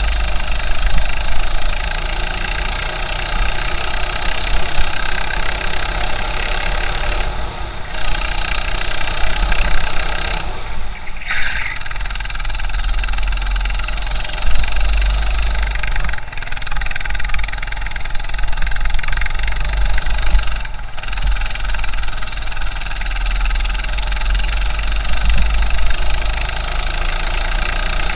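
A 200cc four-stroke go-kart engine running under load, heard onboard through a sealed waterproof camera housing and a low-quality mic, with a heavy low rumble beneath the engine note. The higher part of the sound dips away briefly a few times.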